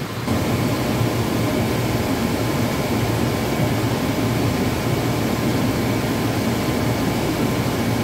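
Liebert DS computer-room air conditioner running: a steady low hum of the compressor and fans with a faint high whine over it.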